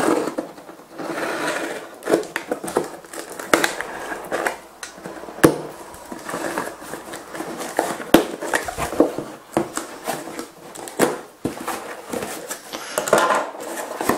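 Utility knife slicing through packing tape and cardboard on a parcel, in short scraping strokes with irregular sharp knocks and clicks as the box is handled. Near the end the cardboard flaps are pulled open.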